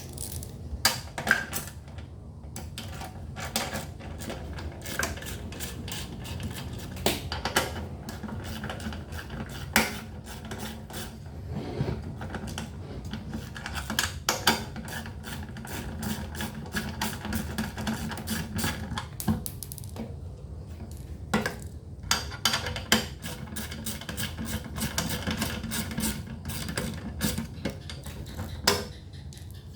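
Irregular clicks, clinks and knocks of hand tools and metal and plastic parts being handled while the fuel tank is taken off a gasoline inverter generator.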